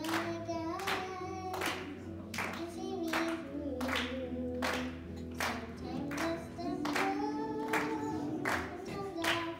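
Voices singing a gospel song in harmony, with handclaps keeping time about every three-quarters of a second over a low bass.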